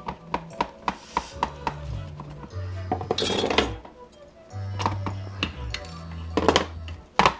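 Sharp metallic clicks and clinks as small metal tabs are pried and pulled off the cells of a drill battery pack, with a few louder scrapes about three seconds in and near the end, over background music with a steady bass line.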